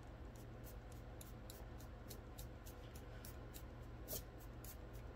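Airbrush giving short hissing puffs of air and paint, about three a second with a stronger one about four seconds in, as the trigger is worked back and forth with the air hose pinched so the paint spits out as a splatter. A low steady hum runs underneath.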